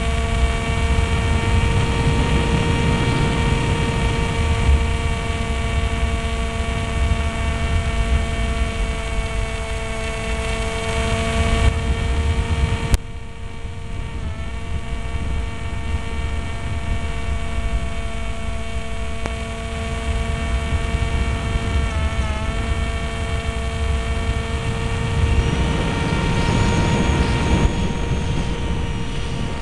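Multiplex Easy Star's electric motor and propeller whining steadily in flight, heard from a camera on the plane, with wind buffeting the microphone. About halfway through there is a click and the sound drops a little, and the pitch wavers briefly later on.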